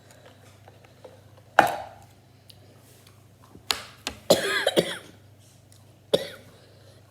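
A woman coughing in several sharp bursts, with a longer, voiced coughing fit about halfway through, from the burn of extremely spicy noodles.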